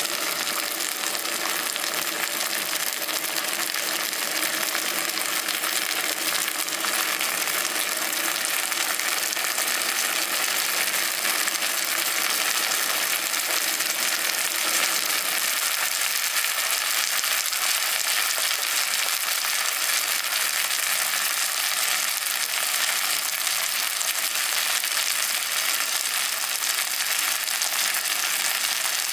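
Chopped eggplant, tomato and potato frying in a nonstick frying pan, a steady crackling sizzle.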